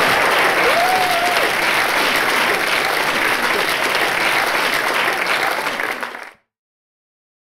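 Theatre audience clapping steadily, cutting off abruptly near the end.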